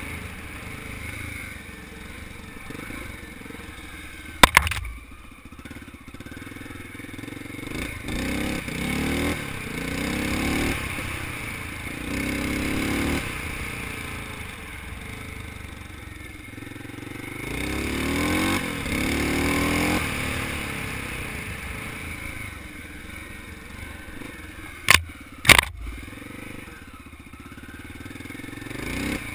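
Honda XR600R's big single-cylinder four-stroke engine revving up and falling back over and over as the dirt bike is ridden. A sharp knock sounds about four seconds in and two more close together near the end.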